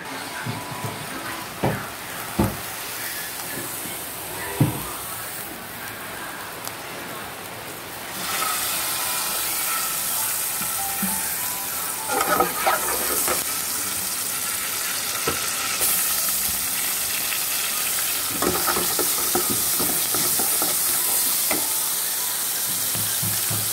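Hot oil sizzling in an aluminium wok on a gas burner, with chopped garlic frying in it; the sizzle starts about eight seconds in and runs steadily, broken by a metal ladle scraping and clinking against the wok. Before the sizzle starts there are only a few sharp knocks.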